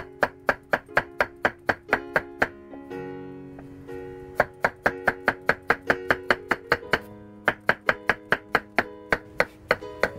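Knife chopping through a Korean zucchini onto a wooden cutting board, quick even strokes about four a second in three runs with two short pauses. Acoustic guitar music plays underneath.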